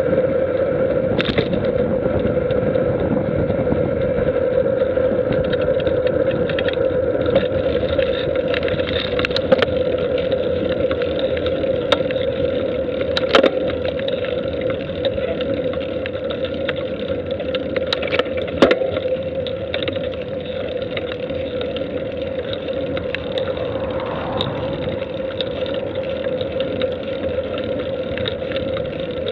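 Steady drone and rushing noise of a vehicle travelling along a road, with a few sharp clicks, the clearest about 13 and 18 seconds in.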